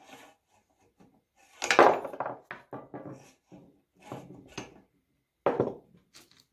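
Metal clanks and rattles from an old Ford flathead starter motor being handled on a workbench, its drive end worked by hand. The loudest clank comes about two seconds in, with smaller knocks after it and another sharp clank near the end.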